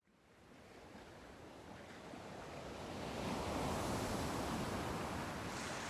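A steady rushing noise, like wind or surf, fading in from the start and swelling about three seconds in.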